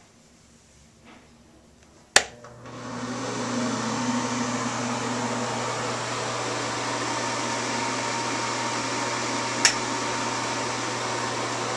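A wall switch clicks on, and a bathroom ceiling exhaust fan starts up. Its whoosh of air and low hum build over about a second, then run steadily. A second sharp click comes near the end.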